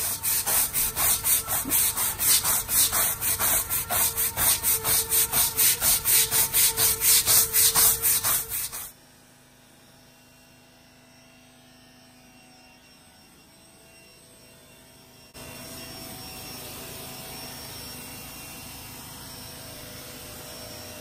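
Stiff-bristled push-broom scrubbing a wet natural-stone deck in fast, even back-and-forth strokes, about four a second, for roughly nine seconds. After a pause, a steady hiss starts near the end as a spray wand rinses the stone.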